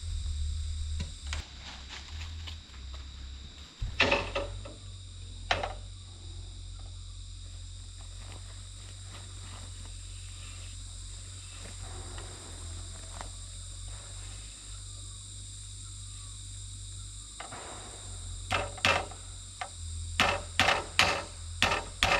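Steady high insect chirring, with a few sharp knocks about four seconds in and a quick series of knocks near the end.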